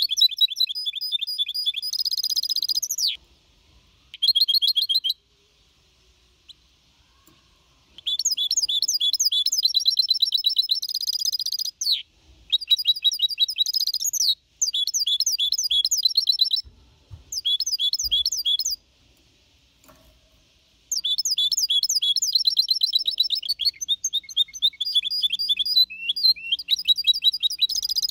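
Four-and-a-half-month-old goldfinch hybrid (mixto) singing Copia Malaga-style song: bursts of rapid, high twittering trills a few seconds long, separated by pauses of up to about three seconds.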